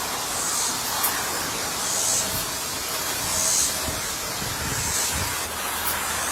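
Steady hiss of background noise, with brief soft rustles now and then.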